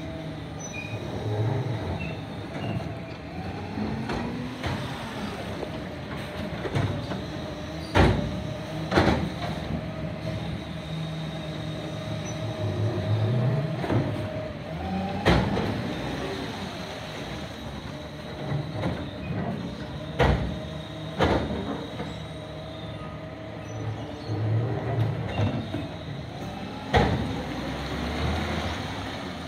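Side-loading garbage compactor truck at work: the engine and lifting arm run with a steady whine, broken by about six loud bangs, some in pairs about a second apart, as wheelie bins are tipped into the hopper and set back down.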